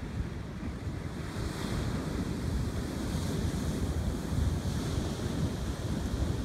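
Ocean surf: big waves breaking and washing up the beach, the hiss of the wash swelling in surges. Wind buffets the microphone with a low rumble throughout.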